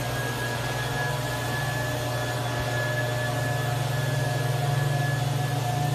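A machine's electric motor running steadily, with a low hum and a faint high whine over it.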